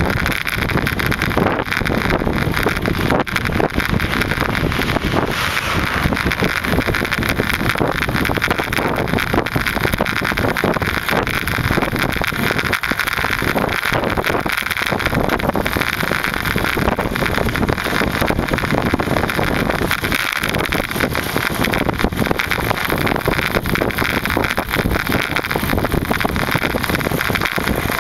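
Steady wind noise on the microphone with road and vehicle noise while riding a bicycle, loud and unbroken.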